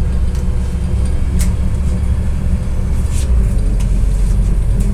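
Inside a moving MAZ-105 bus: a steady low rumble of engine and road with a couple of light rattles. About three seconds in, the rumble drops to a deeper note.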